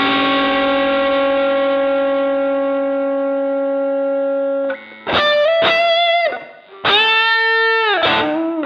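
Electric guitar played through an MXR Dyna Comp compressor pedal: a chord rings with long, even sustain for about four and a half seconds and is then cut off, followed by single-note phrases with string bends and a held note.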